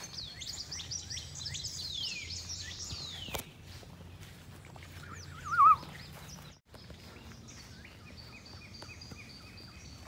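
Songbirds singing in woodland: many quick, sweeping chirps for the first three seconds, a louder warbling call about five and a half seconds in, then a run of short repeated notes. A faint steady low hum sits underneath.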